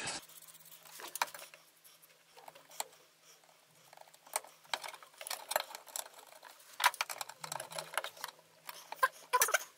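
Irregular light clicks and taps of small plastic and metal parts being handled: car relays having their contacts smeared with Vaseline and being fitted back, over a faint steady hum.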